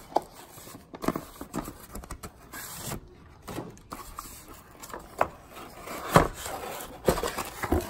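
Cardboard packaging of an ECU being handled: a printed sleeve slid off and the white inner box lifted and opened, with irregular rubbing, scraping and light knocks of card on a wooden table, the loudest knock about six seconds in.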